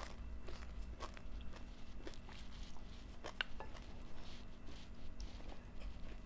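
Eating sounds: a person chewing a mouthful, with scattered light clicks of wooden chopsticks and a spoon against the rice plate and glass bowl, one sharper click about three and a half seconds in.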